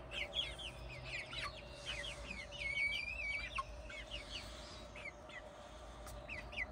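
Backyard chickens clucking and giving many short high-pitched calls, with one longer drawn-out call about three seconds in.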